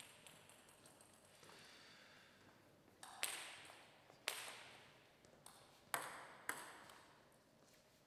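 Table tennis ball bouncing: a few sharp, hollow ticks at uneven spacing, the loudest four between about three and seven seconds in, each followed by a short ring of the hall.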